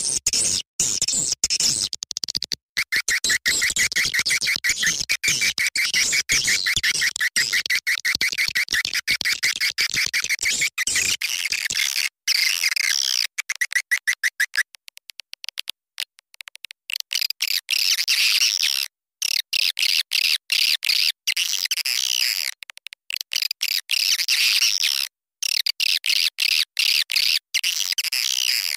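Recorded swiftlet calls from an edible-nest swiftlet lure track: dense high chirping and twittering, with a fast buzzing trill from about 3 to 15 seconds in. The track is chopped by many brief cuts to silence.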